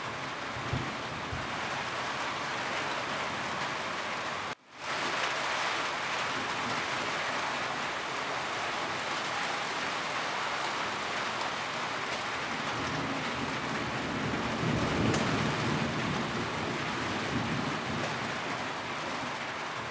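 Steady heavy rain falling on a roof, an even patter with a low rumble building in the second half. The sound drops out for a moment about four and a half seconds in.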